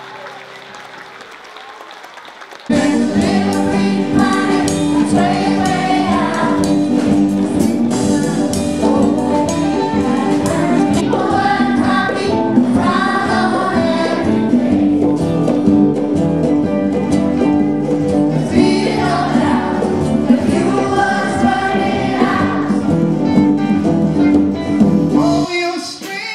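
A live band with acoustic guitar, bass guitar, drums and keyboard plays an upbeat song while a children's choir sings along. After a quieter opening, the full music comes in suddenly about three seconds in and falls away near the end.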